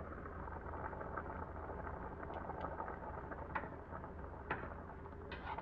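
Pot of brown stew oxtail simmering, with soft bubbling and crackling, a few light clicks, and a steady low hum underneath.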